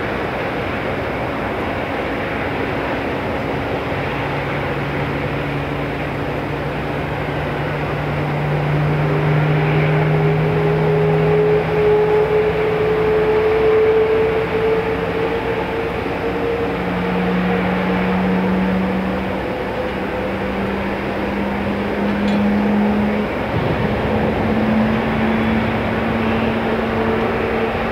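Airliner turbofan engines running: a steady rushing noise with a low whine that climbs slowly in pitch, in steps, swelling in loudness about a third of the way in.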